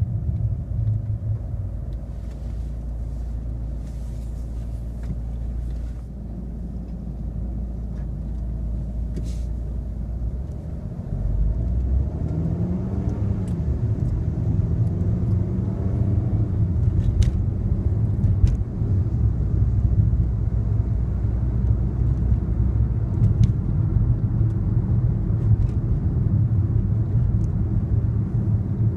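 Car engine and road rumble: a low, steady idle at first, then about eleven seconds in the engine note rises as the car pulls away, giving way to steady driving rumble.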